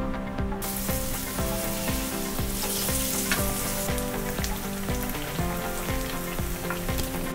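Hot oil sizzling steadily as batter-coated eggplant pieces deep-fry into tempura, the hiss starting about half a second in. Background music with a steady beat plays throughout.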